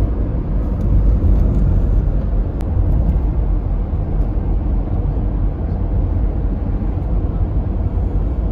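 Steady road noise heard from inside a moving car: a low, even tyre and engine rumble at cruising speed.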